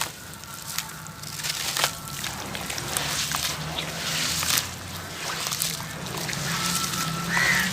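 Gritty crunchy hearts crumbling in water: many small wet crackles and crunches with sloshing.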